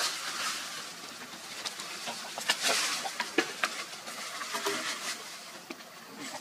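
Outdoor ambience: a steady hiss that swells and fades twice, with scattered sharp clicks and taps throughout.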